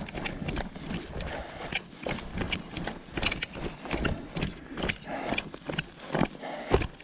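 A hiker's footsteps on dry, rocky desert ground, moving quickly downhill: a steady run of crunching steps, about three a second.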